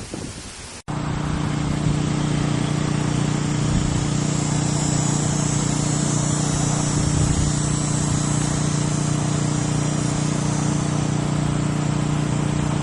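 Wind gusting briefly, then after a sudden cut a small engine running steadily at a constant speed, with an even hum.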